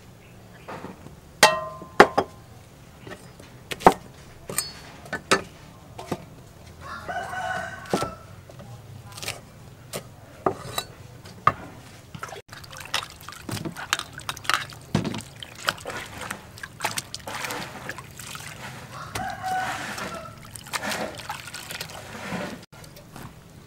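A rooster crowing a few times in the background, among sharp clacks and knocks of dishes and a metal basin being handled, with water sloshing near the end as mushrooms are washed by hand in the basin.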